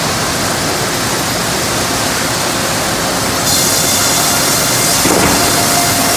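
Sawmill machinery running with a loud, steady, noisy rumble. About halfway through, a higher hiss joins it, and near the end a steady tone sounds.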